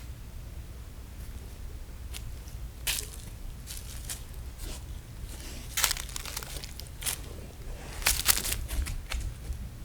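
Burning wood in a bonfire crackling, with a few irregular sharp pops, the loudest cluster about eight seconds in, over a steady low rumble.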